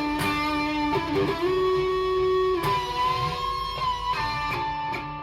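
PRS Custom 24 electric guitar played lead, long held notes with bends and vibrato.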